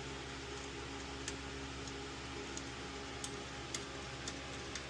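Faint, irregularly spaced metal ticks from hand tools on bolts as the crash-bar fasteners are fitted, over a steady background hum.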